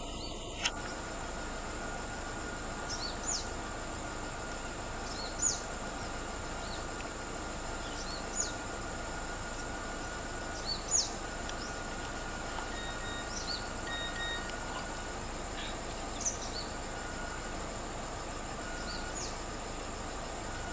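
Scrub-forest ambience: a steady high insect drone over a background hiss, with a bird giving short, sharp, downward-sweeping call notes every two to three seconds, loudest about five and eleven seconds in.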